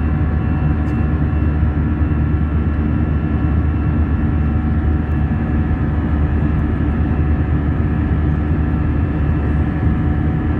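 Steady in-flight cabin noise of an Airbus A320: a constant low rumble from the jet engines and airflow, with several steady whining tones over it.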